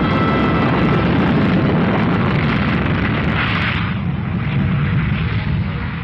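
Loud, sustained rushing rumble of a powerful engine running at full power, easing off slightly after about four seconds.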